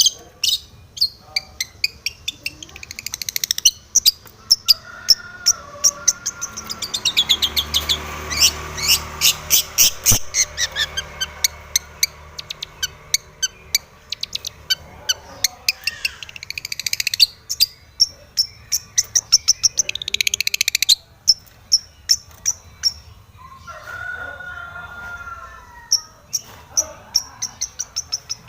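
Long-tailed shrike singing: fast runs of sharp, harsh chattering notes broken by warbled phrases, a song filled out with mimicry of other birds.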